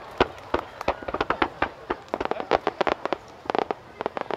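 Aerial fireworks bursting in a rapid, irregular volley of sharp cracks and bangs, many overlapping, thickest in the last couple of seconds.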